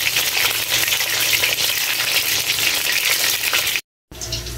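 Sausages deep-frying in hot oil in a wok, a steady sizzle thick with fine crackles that cuts off abruptly near the end.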